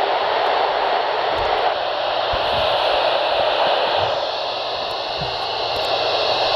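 Steady hiss of radio static from a weather radio receiver after the broadcast cut out mid-warning, with a few soft low thumps underneath.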